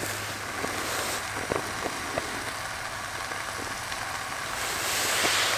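Hamburger patty frying: a steady sizzling hiss with a few faint ticks and crackles, swelling briefly near the end.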